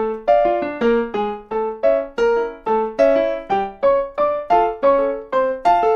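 Solo piano playing a cumbia tumbao accompaniment: short repeated chords in a steady, syncopated rhythm, about two a second.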